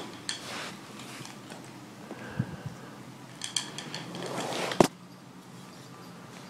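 Kitten eating from a food bowl: scattered small clicks and crunches, with a quick cluster of clicks about three and a half seconds in. One sharp knock near five seconds in is the loudest sound.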